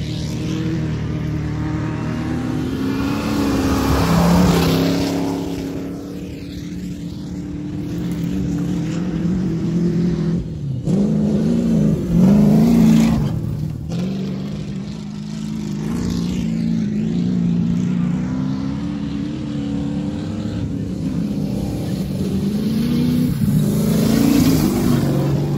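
Old jalopy race cars' engines running hard, rising and falling in pitch as they accelerate and lift off, loudest about four seconds in, around twelve to thirteen seconds in, and near the end as a car comes close.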